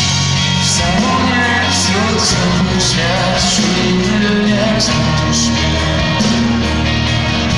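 Live pop-rock band playing with a singer: electric guitars, bass and drums keeping a steady beat, heard from among the crowd.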